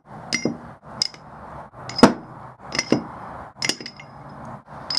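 Stainless steel conveyor rollers clinking against each other and the metal cylinder they stand in as they are handled: about six separate sharp metallic clinks, each with a short ring.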